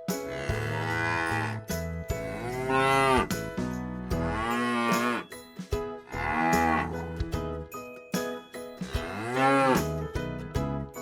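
Cow mooing: about five long calls, each rising and then falling in pitch.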